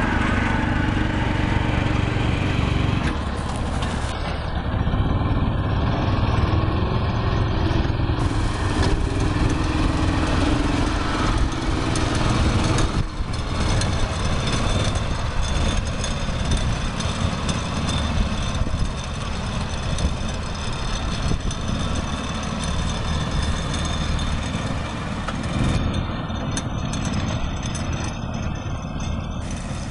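Engine of a homemade amphibious vehicle running under load, steady and low-pitched, as the vehicle moves through water and then drives over ground. The sound changes abruptly about a third of the way in.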